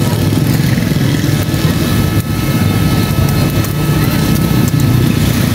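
Steady low rumble of a running motor, with a faint steady whine above it.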